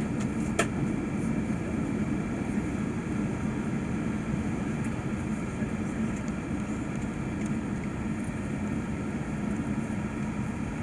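Steady hum of the Airbus A380 cabin, with the low drone of the aircraft's air and engine noise and a few faint steady tones above it. There is a single click about half a second in.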